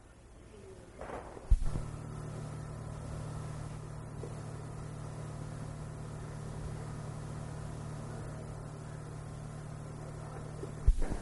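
A steady, unchanging low hum that starts with a sharp click about a second and a half in and stops with another click near the end.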